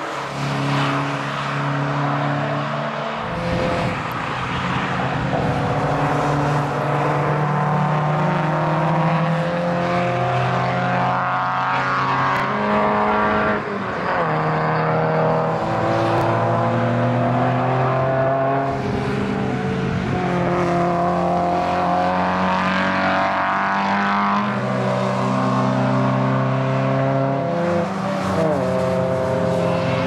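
Several historic racing cars' engines running hard on the circuit as they pass and pull away, their notes holding steady for a few seconds at a time and then stepping in pitch.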